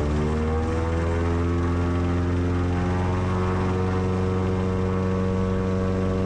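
Lake Buccaneer's 200 hp Lycoming engine and pusher propeller at takeoff power, rising a little in pitch in the first second or so as it comes up to full power, then running steadily through the takeoff roll.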